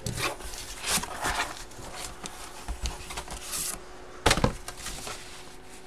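Cardboard box being opened and handled: a run of short scrapes and rustles, with one sharp knock a little past four seconds in.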